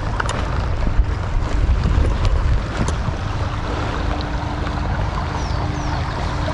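Shallow, fast stream water rushing over stones close to the microphone, with wind rumbling on the microphone.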